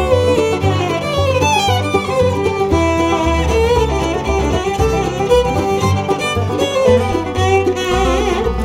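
Background music: a fiddle tune with plucked strings over a steady bass beat.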